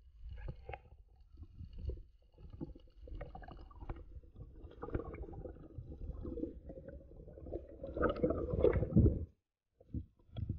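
Muffled underwater noise through a camera housing: irregular low rumbling and gurgling of moving water, loudest about eight to nine seconds in, stopping abruptly shortly after.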